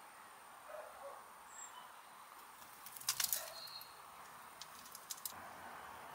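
Guinea pig scrabbling through dry soil and leaf litter: a short burst of crackling rustles about three seconds in, then a few single clicks about five seconds in, over faint garden ambience.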